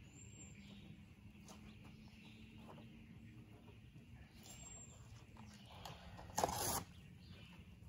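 Quiet outdoor background with a couple of faint high bird chirps, then, about six seconds in, a loud half-second rip of a cardboard beer case being torn apart by hand.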